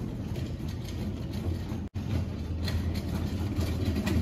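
Steady low engine-like rumble of airport machinery on the apron, heard through the terminal glass. The sound drops out abruptly for a moment about two seconds in.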